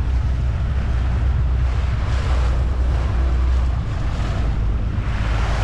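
Wind buffeting the microphone on a moving motorboat, with water rushing past the hull. A heavy low rumble eases a little about four seconds in.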